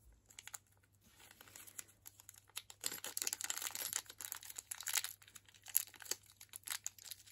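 A small clear plastic bag crinkling and rustling as an earring is worked out of it, with scattered light handling clicks; the crinkling is densest for a couple of seconds in the middle.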